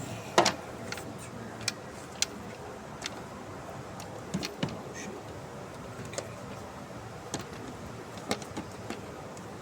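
Hand tools and engine parts clicking and knocking during reassembly of spark plugs and coil packs in an engine bay: a dozen or so sharp, scattered clicks over a steady background hum, the loudest about half a second in.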